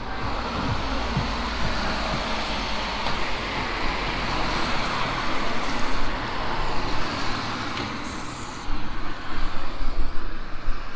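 Road traffic on a wet street: cars passing with tyre hiss on the wet road, swelling about halfway through, with some louder uneven noise near the end.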